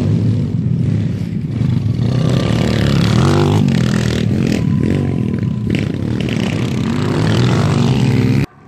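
125cc pit bike engines revving and running hard on a motocross track, the pitch rising and falling with the throttle. The sound cuts off abruptly near the end.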